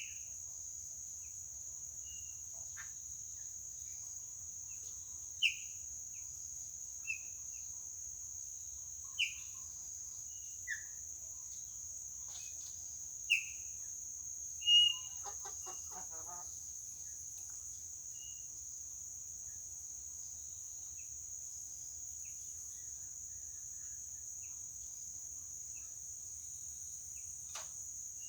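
A bird repeating short, sharp, falling call notes every few seconds, loudest in the first half, over a steady high-pitched insect buzz like crickets. About halfway through there is a brief, lower, rapid chattering call.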